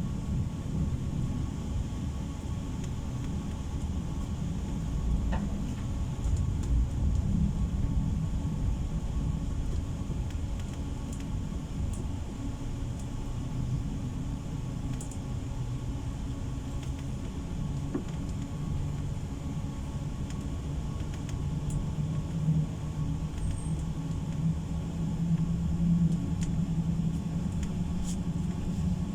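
Pesa tram in motion, heard from inside the passenger cabin: a steady low rumble of the wheels and running gear on the track. A low hum, likely from the drive, grows louder toward the end, with a few faint clicks.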